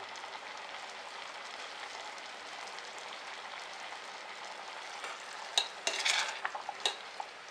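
Rice kheer of milk, rice and jaggery simmering in a stainless steel pot over a low gas flame, a steady bubbling. About five and a half seconds in, a spoon stirs it, scraping and clinking against the pot several times.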